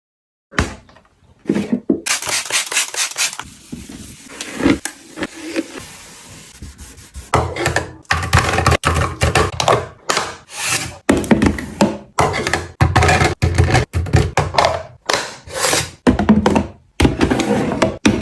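Items being handled and set down: a quick run of knocks and thunks with rubbing in between, starting about half a second in and getting busier and louder about seven seconds in.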